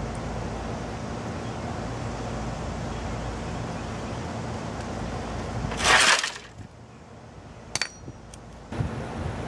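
A hammer knocking apart a small printer motor: a loud, brief crunching burst about six seconds in, then a few sharp metallic clinks of hammer on metal near the end, over a steady outdoor background hiss.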